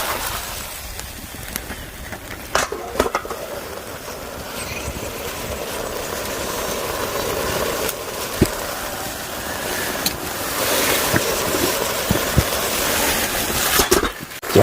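Kimchi stew cooking in a wok over a strong wood fire: a steady sizzling noise that swells in the last few seconds, with a couple of sharp knocks about three seconds in.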